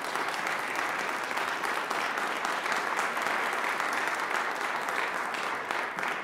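Audience applauding: many hands clapping together, steady and dense.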